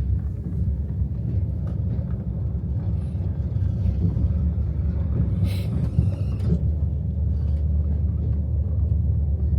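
Soviet-built sleeper train carriage running on the track, a steady low rumble heard from inside the carriage, with a brief hiss a little past halfway.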